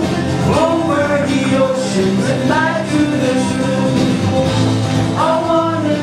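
Live song: a man sings lead into a handheld microphone over an acoustic guitar.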